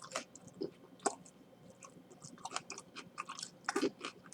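Someone chewing a mouthful of crispy fried chicken sandwich: irregular crunchy clicks and mouth noises.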